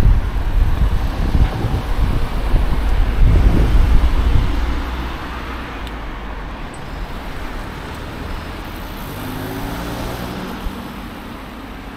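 Road traffic with cars passing, loudest for the first four seconds or so with a heavy low rumble, then quieter and steadier, with an engine note passing about nine seconds in.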